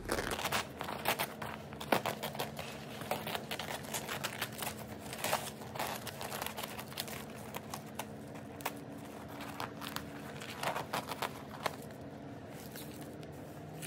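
Glitter heat-transfer vinyl being torn away from around a stitched applique: irregular crackling and ripping as strips of the film are peeled off the stitching.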